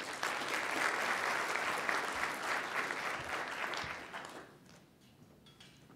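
Audience applauding, dying away after about four seconds.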